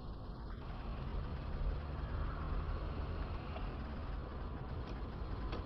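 Steady engine and road noise inside a moving car, picked up by a dashcam microphone, with a thin high tone that stops about half a second in.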